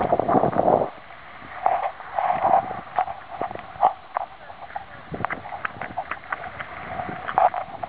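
Irregular knocks and crunches of footsteps on stony, gravelly ground.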